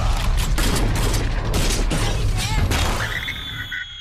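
Action-movie sound effects: a fast run of gunshots over a deep explosion rumble. Near the end it fades, and a few steady high tones sound.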